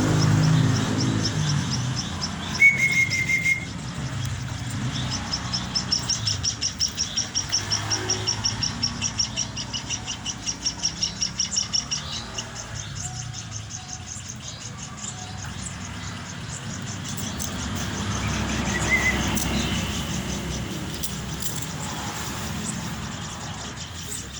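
Munia chicks giving fast, high-pitched begging chirps, several a second, for several seconds in the first half, as they are hand-fed. A short whistle-like note sounds just before the chirping starts, and there is quieter chirping later on.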